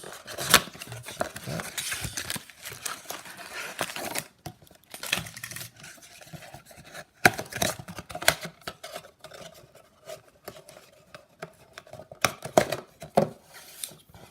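Cardboard retail card box being opened and the foil-wrapped trading card packs pulled out and handled: crinkling, scraping and sharp clicks of cardboard and wrappers.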